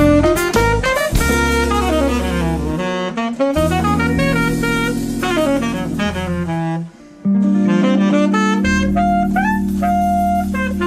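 Jazz quartet recording with saxophone, guitar, bass and drums playing together. The band breaks off suddenly about seven seconds in, then comes back in with long held notes.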